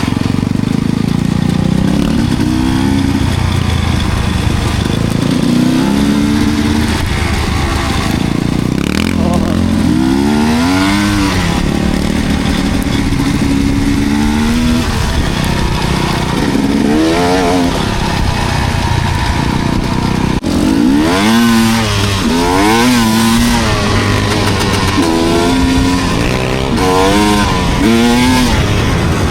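Enduro dirt bike engine revving hard and easing off again and again, its pitch climbing in repeated rising sweeps.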